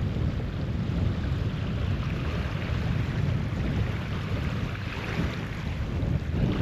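Wind buffeting the microphone: a steady low rush.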